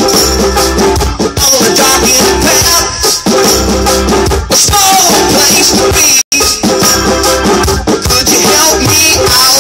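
Live band playing a loud song through the PA: electric guitar, electric bass and drums, with a steady shaker-like hiss on top. The sound cuts out completely for an instant about six seconds in.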